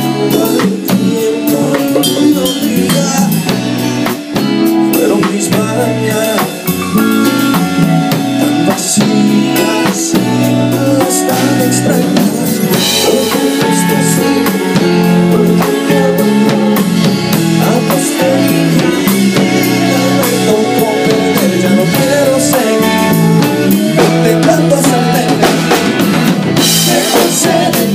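Live band playing an instrumental passage: drum kit and hand drums keep a steady beat over bass and keyboard lines.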